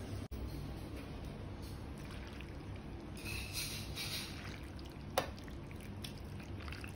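Faint pouring and trickling of broth, most noticeable about three to four and a half seconds in, over a steady low hum, with one sharp click about five seconds in.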